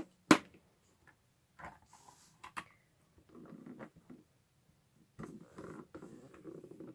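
Two sharp plastic clacks in quick succession as the hinged lid of a stamping platform is swung shut. Then soft rubbing and shuffling as hands press the clear stamp down through the acrylic lid onto the card.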